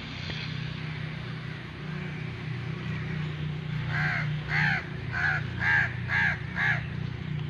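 Donkey braying: about four seconds in, a run of six harsh calls about half a second apart, loudest in the middle of the run.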